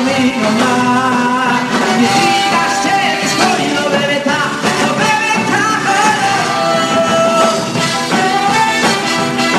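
Live band playing Jewish music, with a male singer carrying the melody.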